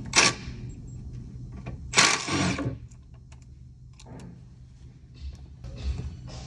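Cordless power tool spinning out the screws that hold a plastic cover under the truck, in two bursts: a short one at the start and a longer one about two seconds in.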